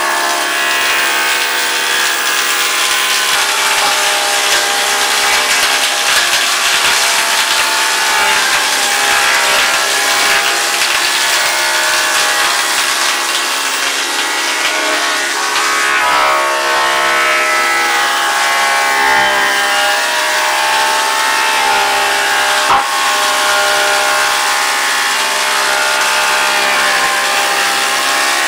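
Thickness planer running and cutting a wooden plank: a steady machine whine of several tones over a loud, even hiss of the cutters shaving the wood.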